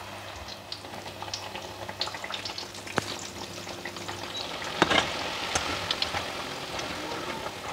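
Batter-coated tempeh slices (tempe mendoan) deep-frying in a pan of hot oil: a steady sizzle full of small crackling pops. A few sharp knocks of a metal spatula against the pan stand out, the loudest about five seconds in.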